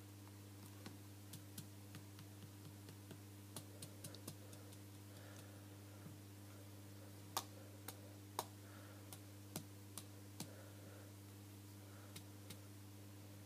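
Faint, irregular clicks and ticks from an iPhone 5 over a steady low hum, a noise the phone makes by itself with nothing running. The sharpest clicks come about halfway through.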